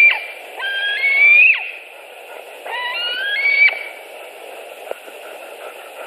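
Juvenile white-tailed eagle calling: two drawn-out, whining calls about two seconds apart, each rising in pitch and breaking off with a quick downward drop. These are the food-begging calls typical of a young eagle at the nest.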